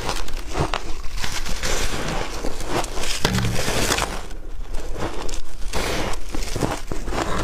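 Close-up crunching of packed shaved ice dusted with milk powder being bitten and chewed: a dense run of crisp, irregular crackles.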